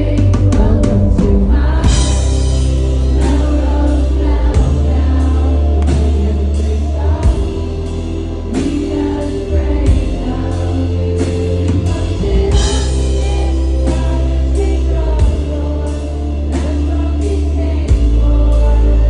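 A live band playing, with a woman singing lead vocals over drums, heavy bass and guitar. A cymbal crash comes about two seconds in and again about twelve seconds in.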